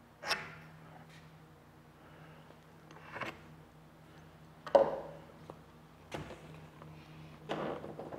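Bench work on a wooden centerboard: a few sharp knocks and clatters of tools and wood set down and handled, the loudest about halfway through, then a longer clatter near the end as the board is gripped and shifted. A steady low hum runs underneath.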